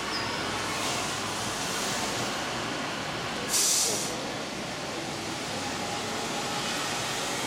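G scale model trains running on the layout's track, a steady running noise of wheels on rails, with a short, loud hiss about halfway through.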